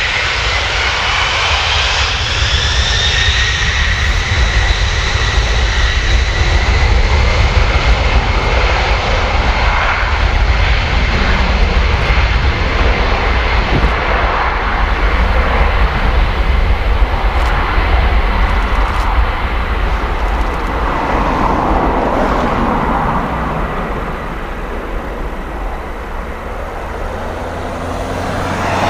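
A Boeing 767-200ER's twin Pratt & Whitney JT9D turbofans spool up to takeoff power, the fan whine rising in pitch over the first few seconds. It settles into a steady, loud jet roar with deep rumble through the takeoff roll, easing off near the end as the aircraft pulls away down the runway.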